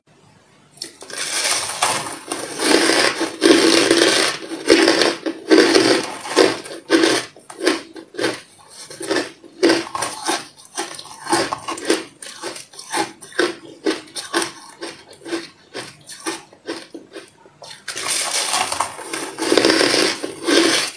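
Snow-like carbonated ice crunching close to the microphone, a dense run of crackly crunches in an uneven rhythm of about two a second, starting about a second in and easing off for a while before picking up again near the end.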